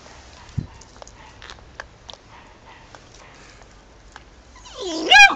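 Faint rustling and ticks, then near the end a beagle puppy gives one loud, high-pitched yelp that sweeps sharply up in pitch.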